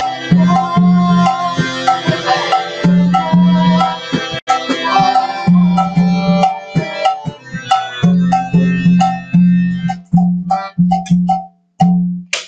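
Tabla-style drum rhythm, with deep ringing bass strokes and higher ringing strokes, over held harmonium chords as the instrumental close of a devotional song; the music stops just before the end.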